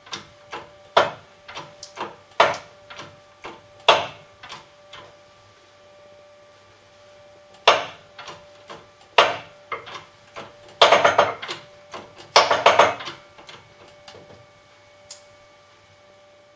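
Hydraulic bench press being pumped to press a collar onto a Land Rover Series front half shaft: an irregular run of sharp metallic clicks and knocks, with two denser clattering bursts about eleven and twelve and a half seconds in.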